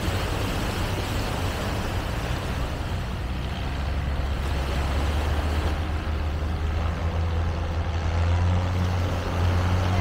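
An engine running with a steady low rumble over outdoor background noise, growing a little louder in the second half.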